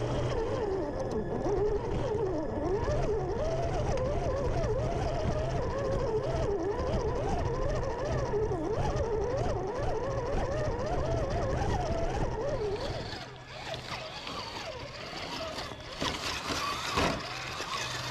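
RC crawler truck's electric motor and geared drivetrain running as it crawls over tree roots, heard close up from under the chassis: a whine that wavers up and down quickly with the throttle over a steady low hum. About 13 seconds in it turns quieter and more distant, with one sharp click a few seconds later.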